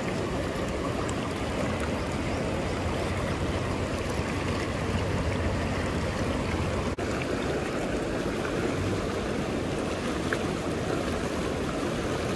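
River water running steadily, an even rushing noise.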